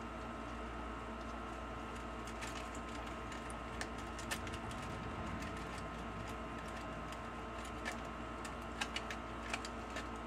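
Steady low room hum with scattered light clicks and taps, a few close together near the end.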